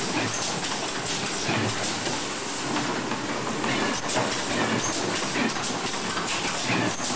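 RJE Magellan LD automatic corrugated box maker running, a steady mechanical clatter over a hiss, dotted with many small clicks and knocks.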